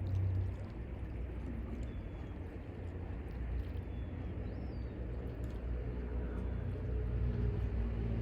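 Waves of the Mediterranean Sea washing ashore: a steady rush of water with a deep rumble underneath. A few faint, short bird calls come through it.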